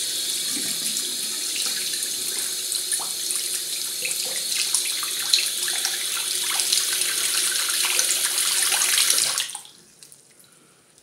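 Water running hard from a tap, a steady splashing rush that stops abruptly about nine and a half seconds in.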